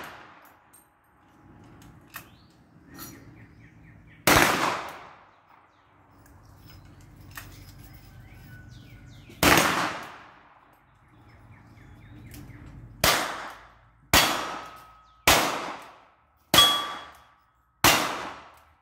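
Seven black-powder gunshots: two about five seconds apart, then five in quicker succession about a second apart. Several are followed by a faint ring from the steel targets being hit.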